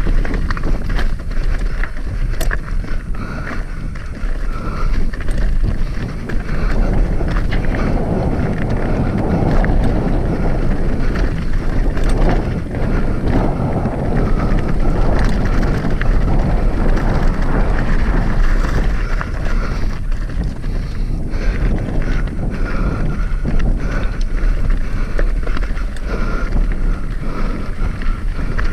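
Wind buffeting the microphone while an Upland Vanguard hardtail mountain bike descends a rocky trail at speed, its frame and chain rattling with many sharp knocks over the rocks.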